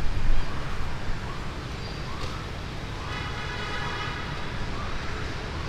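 City traffic noise: a steady low rumble, with a faint tone that rises and falls a few times and a steadier tone with several pitches lasting about a second and a half past the middle.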